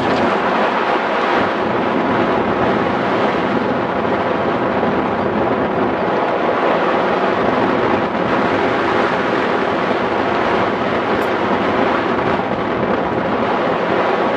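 Steady rush of airflow buffeting the microphone of a camera mounted on a hang glider in flight.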